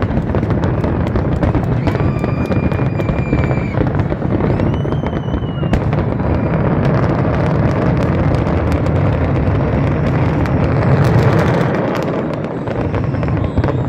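Large aerial fireworks display going off nonstop: a continuous rumble of shell bursts layered with rapid crackling and popping. Several high whistles sound during the first half.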